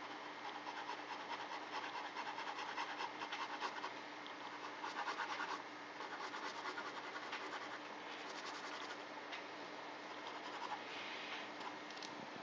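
Pen scratching on paper in a fast run of short strokes, shading a drawing, with brief busier spells.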